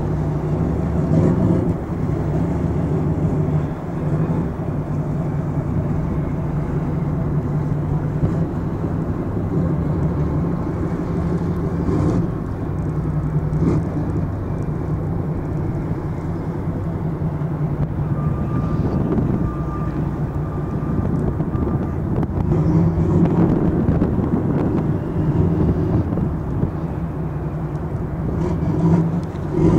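Steady low rumble of motor traffic. A faint, thin high tone sounds for a few seconds around the middle.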